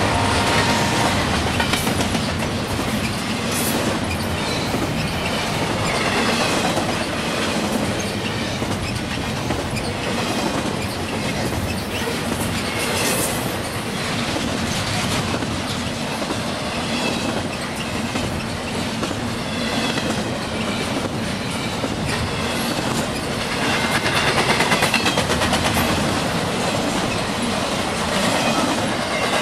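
Long intermodal freight train of double-stack container cars and trailer flatcars rolling past at close range: a steady rumble of wheels and cars, with the clatter of wheels over rail joints.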